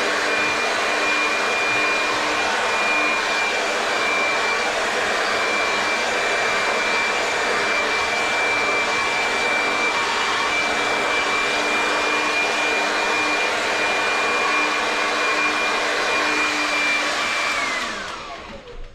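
Hair dryer with a comb attachment running steadily, a rush of air with a high motor whine. Near the end it is switched off and the whine falls in pitch as the motor spins down.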